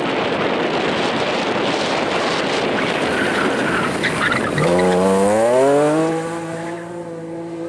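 Rally car sliding through a loose gravel corner with a dense hiss of tyres on gravel, then about halfway through its engine revs up in one steep rising pull as it accelerates away, the note levelling off and fading near the end.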